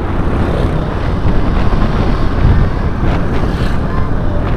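Wind rushing and buffeting over the microphone of a moving motorcycle, a loud steady rumble with engine and road noise underneath.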